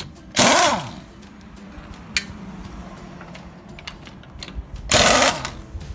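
Ingersoll Rand 231C half-inch air impact wrench firing two short bursts on a car's lug nut, each about half a second, its motor winding down in pitch after each trigger release. A single sharp click falls between them.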